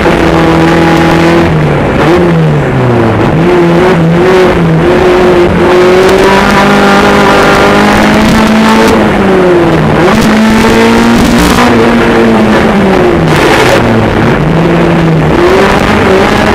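Honda K24 four-cylinder engine in a Jeep Cherokee off-road racer running hard, its pitch holding steady and then dropping and climbing again several times as the driver lifts, shifts and accelerates.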